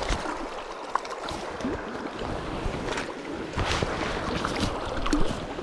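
Flowing river water with scattered splashes and knocks as a small brown trout is brought in and handled.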